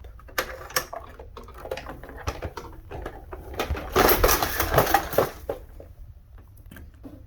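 Clicks, knocks and clattering of a dehumidifier's casing and parts being handled, with a louder burst of rattling about four seconds in.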